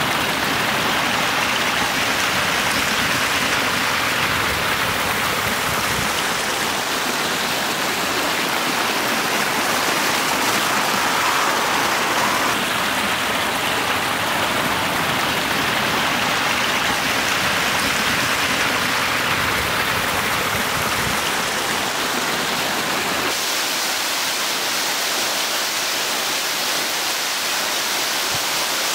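Small waterfall and creek water cascading over rocks: a steady rush of falling water, its low rumble dropping away suddenly about 23 seconds in.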